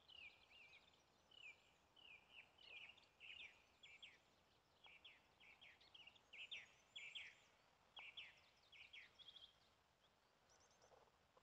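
Small songbirds chirping quietly in a quick run of short, high, falling notes, several a second, easing off near the end.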